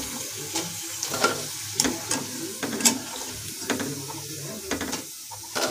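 Hot oil sizzling steadily in a kadhai as fried soya chaap pieces are lifted out with a wire-mesh skimmer, with about ten sharp metal clicks as the skimmer knocks against the pan rim and steel plate.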